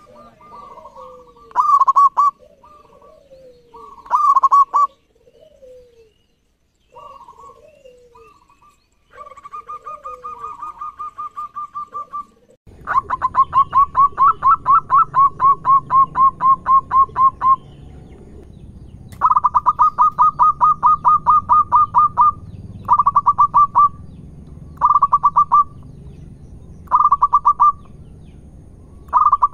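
Zebra doves (perkutut) singing: runs of quick, staccato cooing notes repeated in phrases of one to several seconds. About 13 s in, one bird's song gives way to another's, with a steady low background hiss behind it.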